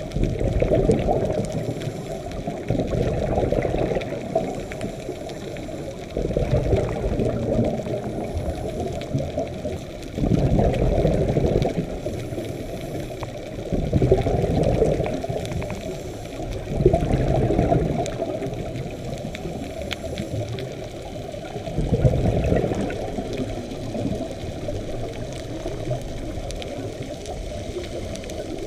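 Scuba diver breathing through a regulator, heard underwater through a camera's waterproof housing: muffled, low rushes of exhaled bubbles that swell every few seconds over a constant underwater wash.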